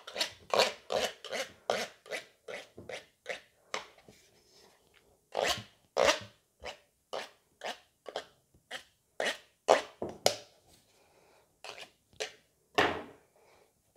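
Kitchen knife cutting excess pastry dough around the rim of a metal baking tin: repeated short scraping strokes, about two a second, with a brief pause about four seconds in.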